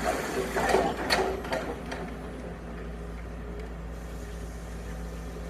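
Excavator diesel engine running steadily at a distance during a house demolition, with a few knocks and clatter in the first second and a half.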